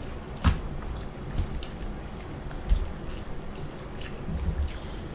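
Close-miked eating: chewing and wet mouth sounds, with a few sharp clicks and taps of a fork against foil takeout trays.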